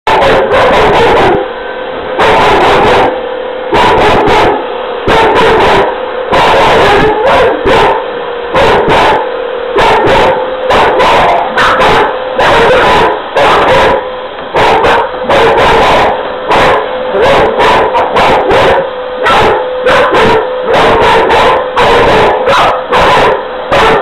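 A pit bull–boxer mix and a boxer barking and yelping at an upright vacuum cleaner, loud, fast and almost without a break. It is aggressive, agitated barking at the machine, which is not running.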